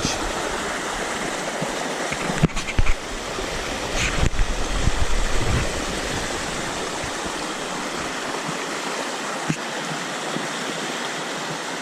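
River water rushing steadily, with a few low thumps and knocks between about two and five and a half seconds in.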